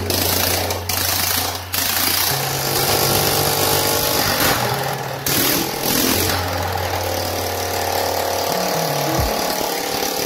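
Background music with a steady bass line over a scooter engine running and backfiring, with rapid popping from the exhaust.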